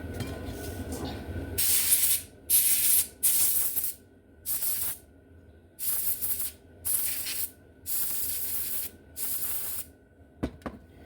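Eight short hissing bursts of spray, each under a second, aimed at a slot car's chassis and axle to clean off motor carbon and gunk. Two small clicks come near the end.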